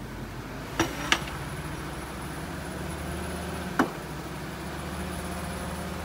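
Loaded dump truck's diesel engine running at low revs as it reverses, with three sharp clanks: two close together about a second in and one near four seconds.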